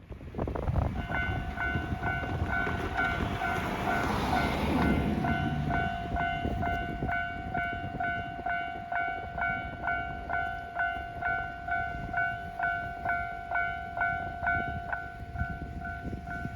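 Japanese railway level-crossing warning bell ringing in a rapid, evenly repeated ding. A train passes noisily over the crossing in the first few seconds.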